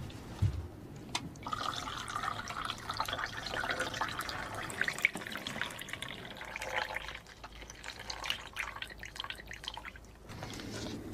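Liquid splashing and dripping off a soaked laptop as it is tipped and handled, with small clicks and knocks from the laptop's casing.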